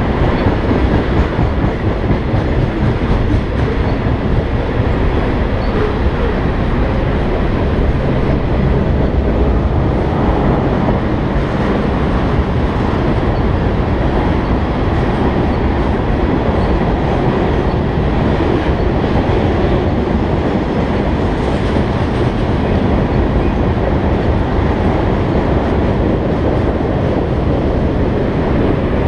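Freight train of tank cars rolling past just below, a steady loud rumble of steel wheels on rail.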